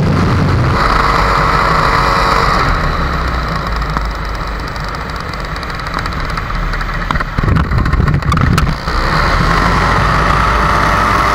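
Paramotor's two-stroke engine running in flight, eased back for several seconds with wind rushing and buffeting over the microphone, then throttled back up about nine seconds in.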